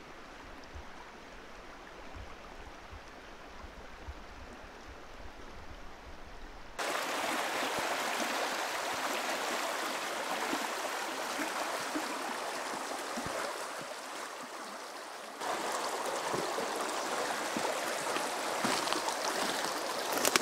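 Small rocky mountain brook rushing over stones and logs. About seven seconds in the water becomes suddenly much louder and hissier, as if heard right at the water's edge. It eases a little and then jumps louder again about fifteen seconds in.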